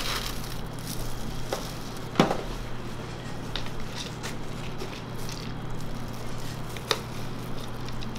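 Cornflakes and sliced almonds being tipped from containers onto a crepe, a light scattered crackle, with a few sharp clicks and a steady low hum underneath.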